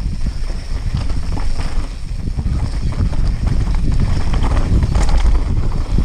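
Wind buffeting the microphone of an action camera on a mountain bike riding a dirt singletrack, with a constant low rumble and irregular knocks and rattles as the bike rolls over the rough trail.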